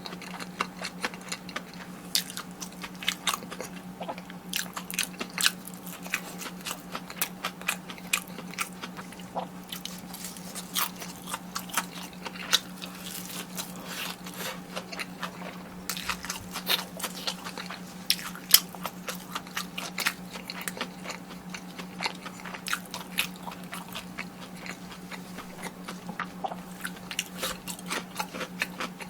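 Close-miked biting and chewing of crispy fried food, with many sharp crunchy crackles throughout, over a steady low hum.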